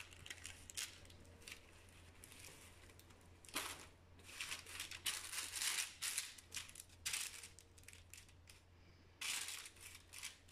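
Parchment paper and a cotton cloth rustling and crinkling in irregular bursts as hands shift and straighten a strudel on a paper-lined baking tray, with a steady low hum underneath.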